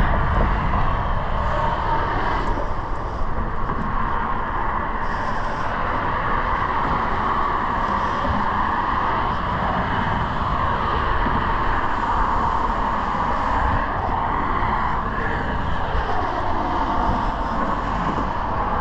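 Steady rush of heavy highway traffic on the interstate, a continuous blend of tyre and engine noise with a low rumble underneath.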